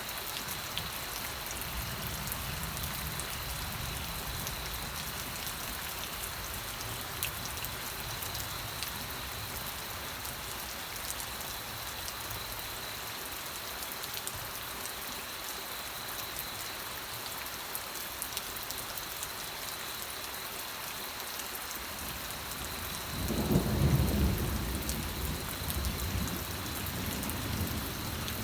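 Steady rain falling, an even hiss of drops. About two-thirds of the way through, a low rumble of thunder swells up and dies away over a few seconds.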